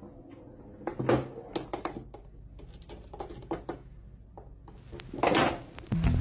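Small balls on a toy pool table clicking and knocking as a cat bats them with its paw: a scattering of light clicks, with a louder rattle about five seconds in.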